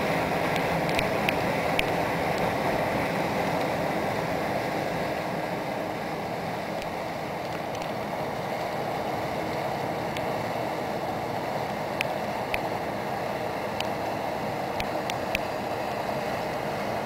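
Steady rush of water churned up by the passing steamship Montrealais, a laker riding light, with her machinery running beneath it. Faint scattered ticks sound now and then.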